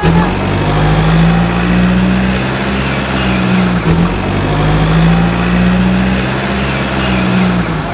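Heavy vehicle engine sound running steadily, its low hum swelling and dipping briefly a few times.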